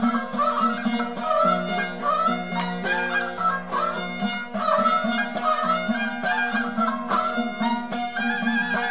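Saroz, the Balochi bowed fiddle, playing a gwati tune: a gliding, ornamented melody over a steady low drone, with a regular pulse of sharp strokes several times a second.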